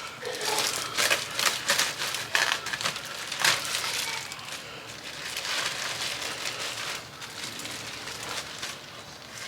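Roast turkey being cut and pulled open by hand: an irregular run of crackling and tearing from the tender meat and skin.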